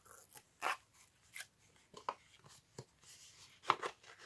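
Intermittent soft rustles and crinkles of paper ephemera and packaging being handled, in short separate bursts.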